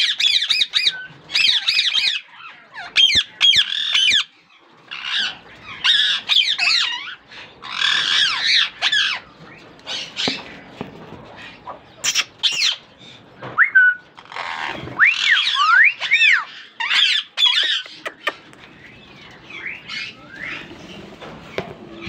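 A flock of Indian ringneck parakeets screeching: clusters of harsh, rising and falling calls from several birds at once, thinning out to scattered calls for the last few seconds.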